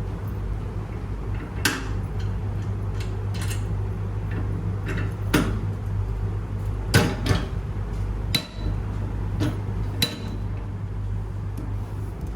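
Scattered metal clicks and knocks, about seven, some with a short ring, as a stranded aluminium cable is handled and seated in a metal clamping fixture, over a steady low hum.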